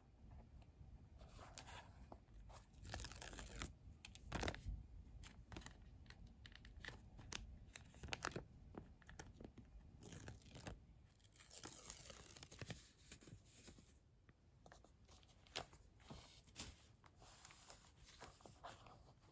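Quiet, close-up rustling and crackling of paper and plastic as a sticker sheet's backing is peeled away and the sheet is handled. The peeling makes an irregular tearing, crinkling sound.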